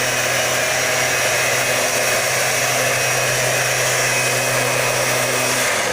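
Maruyama backpack mist blower, its two-stroke engine and fan running steadily at a high rush of air as it sprays larvicide. The steady engine note drops out near the end.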